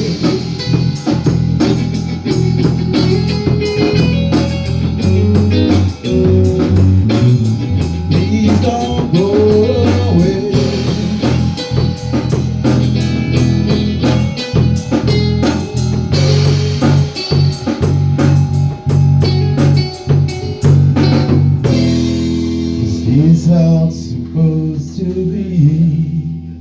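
A band of guitar, bass guitar and drum kit playing the instrumental close of a rock song, with dense drum strikes under bass and guitar lines. About 22 seconds in the drumming thins out and a held chord rings on, with bending guitar notes over it, fading near the end.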